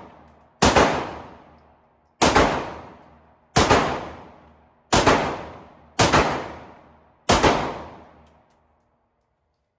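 Six gunshots fired one at a time, about a second to a second and a half apart, each followed by a long echoing decay.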